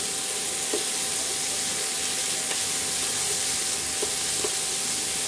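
Paneer tikka skewers sizzling in ghee on a hot flat tawa: a steady frying hiss, with a few faint clicks from the metal skewers being handled.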